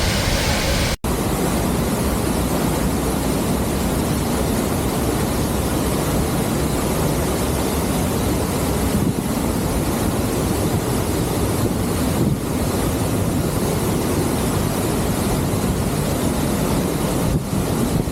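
Sgwd yr Eira waterfall heard close up: a loud, steady rush of falling water, with a brief dropout about a second in.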